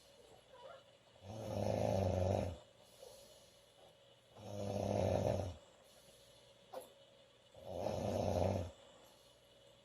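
A young woman snoring loudly: three long snores, each lasting over a second, about three seconds apart. A brief sharp click comes just before the third snore.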